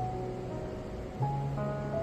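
Slow background music of long held notes, with a new chord coming in a little past halfway.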